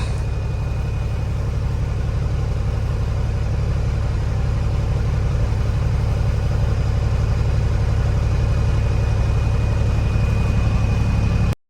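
A vehicle engine running steadily with a low, even drone, cutting off abruptly near the end.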